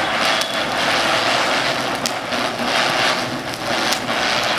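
Ground chakkar firework (Sri Kaliswari ground spinner) spinning and throwing sparks: a steady hiss of burning composition, with a few sharp ticks about two seconds apart.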